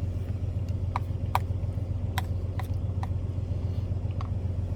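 Steady low mechanical hum, like a running engine, with about six light, sharp clicks scattered through it.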